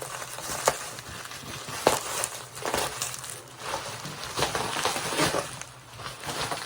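Packaging crinkling and crushing as it is handled and pulled apart by hand, in irregular rustles and crackles.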